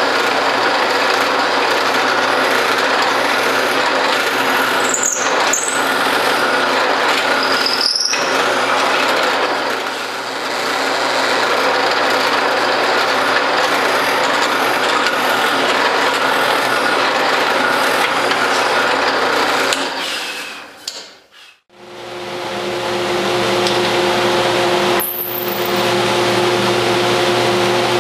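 Drill press running and boring into a laminated wood propeller blank, with a couple of brief high squeals. About twenty seconds in it dies away almost to silence. A bandsaw then runs with a steady two-note hum and one more short squeal.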